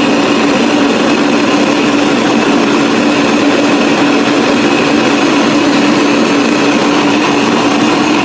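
Electric kitchen blender running steadily at speed, blending beetroot and fruit with water: a loud, even motor whine over the churning of the liquid.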